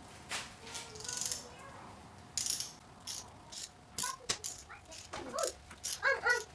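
Socket ratchet clicking in several short runs as its handle is swung back and forth, run down on a lower intake manifold bolt of a supercharged GM 3800 engine, tightening the bolts in their numbered sequence.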